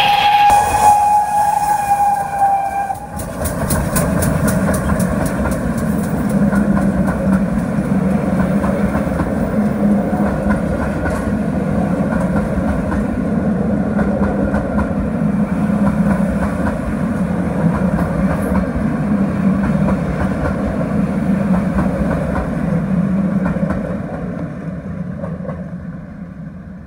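A GWR Manor-class steam locomotive's whistle gives one steady note for about three seconds as the engines pass. Then a train of coaches rolls by with a steady low rumble and regular clicks of wheels over rail joints, fading away near the end as it draws off.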